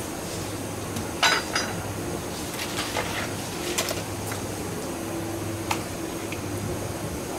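Metal tools knocking and clinking on a plastic cutting board as an eel is filleted: one sharp, ringing metallic clink a little over a second in, the loudest, then a few lighter knocks, over a steady low background hum.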